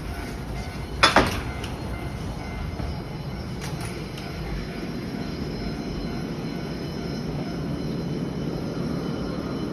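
Funicular cable car running on its rails: a sharp double clunk of the wheels over a rail joint about a second in, then a steady rumble that slowly grows louder.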